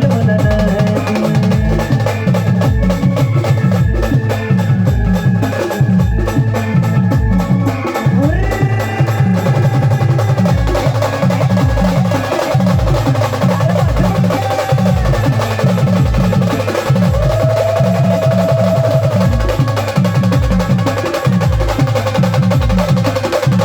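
Maharashtrian brass band playing: a steady deep drum beat a little under once a second under busy snare-style drumming, with a sustained melody line that slides up about eight seconds in and holds a long note later on.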